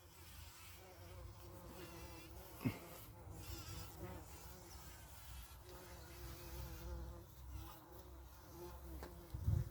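Bumblebee buzzing steadily as it forages, a low wavering hum. A brief sharp thump about a third of the way in, and a loud low rumble burst near the end.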